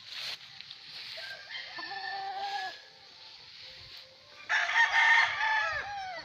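Gamefowl roosters crowing: a quieter crow about two seconds in, then a louder one near the end that drops in pitch as it closes.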